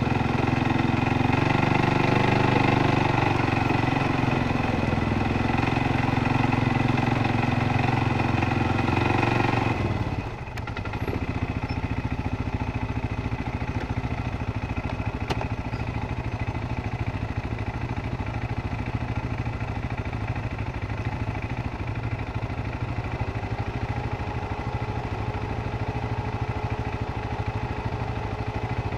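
ATV engine running at low revs, a steady engine note that drops and grows quieter a little after ten seconds in, then runs on evenly.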